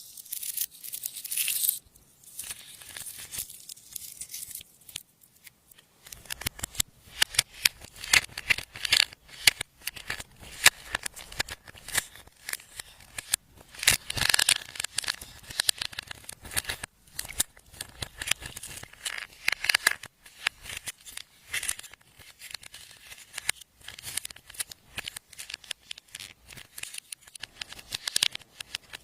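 Slime being squeezed, stretched and kneaded by hand, giving a dense, irregular run of sticky clicks and pops that gets busier about six seconds in.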